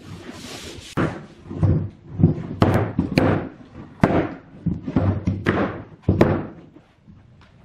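A series of heavy knocks and thuds, about a dozen over seven seconds at an irregular pace, each with a short ringing tail.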